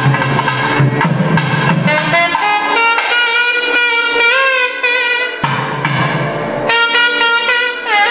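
Carnatic-style temple music: a loud reed pipe plays a winding melody with bending notes over drumming. The drums drop out about two seconds in and come back briefly past the middle.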